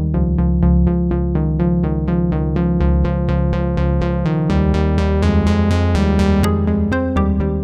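Electronic background music: fast repeating synthesizer keyboard notes over a steady bass.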